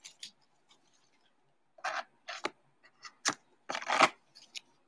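Hands handling trading card packs and cards: several short rustling, sliding bursts about two seconds in and again around three to four seconds, the loudest near the end.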